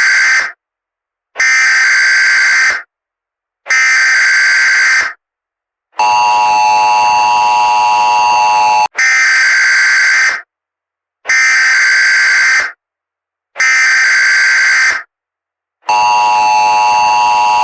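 Emergency Alert System signalling. Three short buzzing data bursts of the SAME header, each about a second and a half long with a second of silence between them, are followed by a steady two-tone attention signal lasting about three seconds. Then come three more bursts, and the attention tone starts again near the end.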